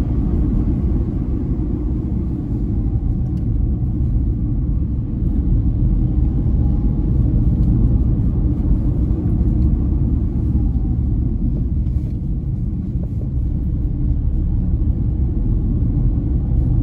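Steady low rumble of a car driving along a road, engine and tyre noise heard from inside the cabin.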